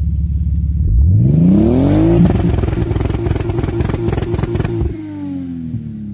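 Toyota Supra Mk4's 2JZ-GTE twin-turbo inline-six running low, then revving up about a second in and held high with rapid crackling from the exhaust, before the revs drop away near the end.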